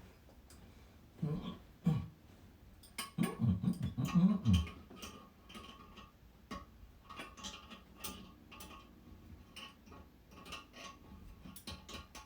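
Many small scattered clicks and ticks of hands and metal parts as a nut is threaded onto a toilet tank bolt, over a faint steady hum. A few low murmured voice sounds near the start.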